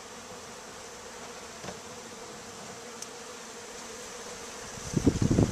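A swarm of honey bees buzzing as a steady, even hum while their comb is worked. About five seconds in, a short burst of louder low rustling and knocks from the comb being handled.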